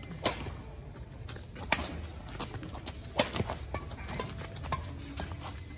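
Badminton rackets hitting a shuttlecock in a rally: three sharp pops about a second and a half apart in the first half, with lighter ticks of players' footsteps on the concrete court.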